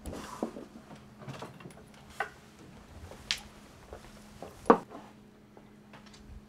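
A few soft knocks and clicks of objects handled on a table, with one sharper knock about three-quarters of the way through, over a faint steady hum.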